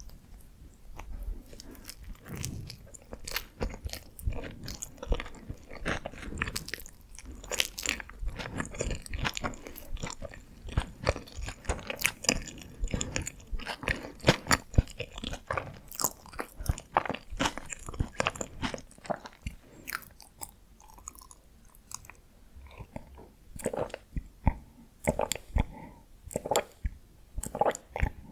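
Close-miked eating: a person biting and chewing Korean steamed buns (hoppang), with many small, irregular wet mouth clicks and smacks.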